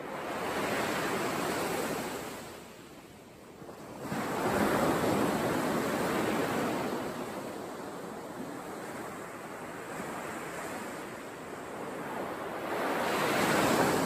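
Surf breaking on a sandy beach, swelling and fading in three surges: about a second in, a louder one that rises sharply at about four seconds, and another near the end.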